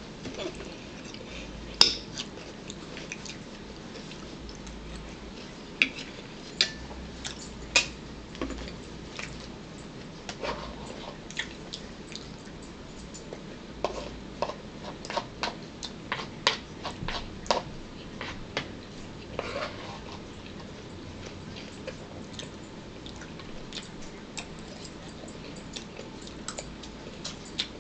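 Eating at a table: chewing, with scattered sharp clinks of a fork and dishes, thickest about halfway through.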